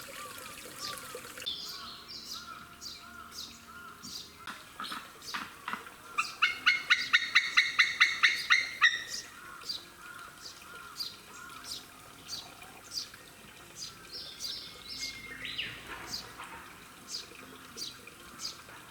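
A sea eagle calling: a fast run of about a dozen loud, pitched call notes, about four a second, lasting some three seconds midway. Small birds chirp faintly throughout.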